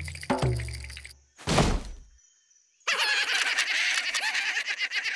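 Cartoon soundtrack: music ends on a sharp knock, a short swish follows, and after about a second of silence a dense jumble of high, wavering cartoon sounds starts and keeps going.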